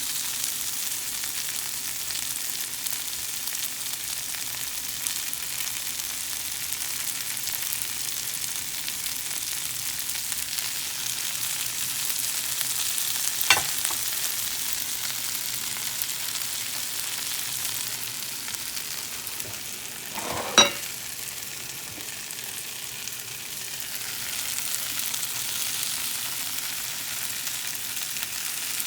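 Food sizzling as it fries in a pan, a steady hiss, broken twice by a sharp knock, once about halfway through and again some seven seconds later.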